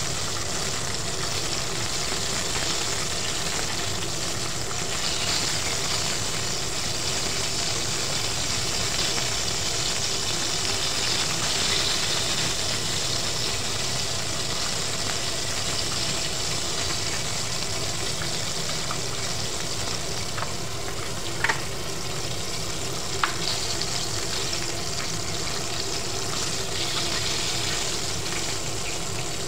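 Battered chicken pieces frying in hot oil in a pot, a steady sizzle with a faint steady hum underneath. Two sharp clicks about two-thirds of the way through, metal tongs knocking against the pot.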